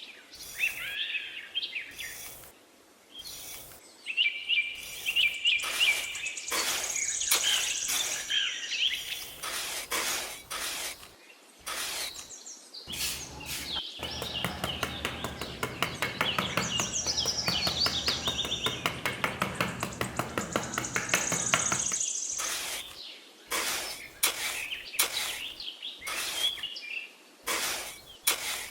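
Birds chirping, with scattered sharp knocks and taps. In the middle, about eight seconds of fast, even rattling over a low hum, like a small power tool running against work.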